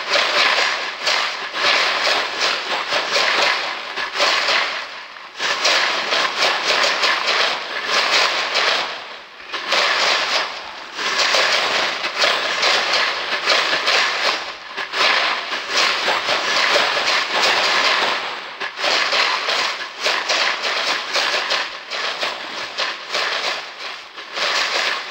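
Dense, loud crackling and clattering noise, made of a rapid mass of fine clicks, that drops away briefly about four times before surging back.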